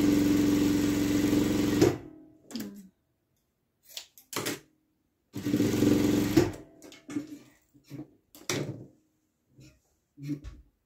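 Industrial lockstitch sewing machine stitching a ribbon binding along the edge of a patchwork quilt block in short runs: a steady hum for about two seconds, then a second run of about a second midway, with several brief stitch bursts between and near the end.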